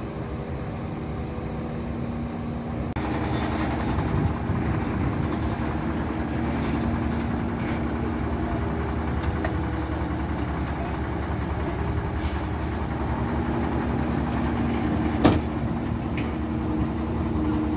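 Large diesel dump truck engine running steadily, growing louder about three seconds in. One sharp knock sounds near the end.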